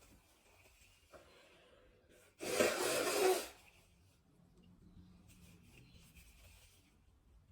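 A person with a cold sneezing once: a single loud, breathy sneeze lasting about a second, about two and a half seconds in.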